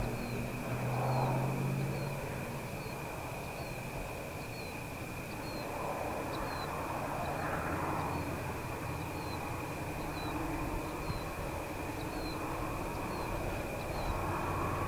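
Outdoor ambience: a steady high-pitched hum, with a short falling chirp repeating a little under twice a second, over a low rumble that swells and fades.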